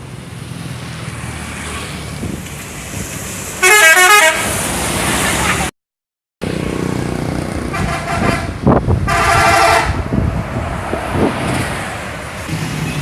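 Indonesian bus 'telolet' multi-tone musical horn sounding short warbling tunes: one brief stepping burst about 4 s in and a second, longer rapid-warble burst about 9 s in. Bus engine and road noise run underneath, broken by a half-second dead gap where two clips are spliced.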